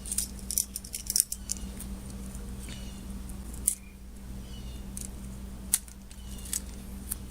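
Metal clinking and scraping of a hand tool working on a vise part: a quick flurry of sharp clicks and scrapes in the first second and a half, then two single sharp clinks, over a steady low hum.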